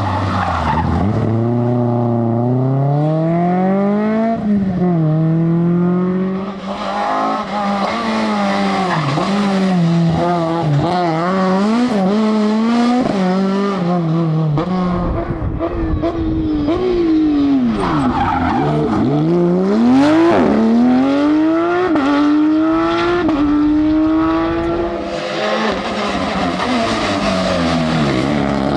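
Rally car engines at full throttle, revs climbing through the gears with quick breaks at each upshift, then dropping off under braking, over and over as the cars pass.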